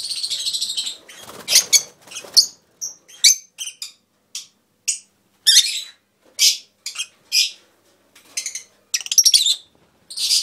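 A flock of peach-faced lovebirds calling: sharp, high chirps and squawks in irregular bursts, some in quick runs, with short pauses between.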